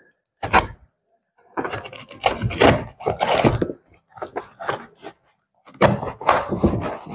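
Cardboard box being torn open by hand: a short rip about half a second in, then three longer bursts of tearing and rubbing cardboard.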